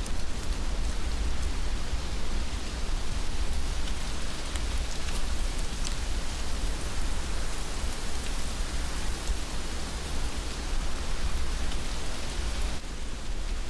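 Heavy rain falling steadily, with scattered close drops ticking and a low rumble underneath. The upper hiss thins a little near the end.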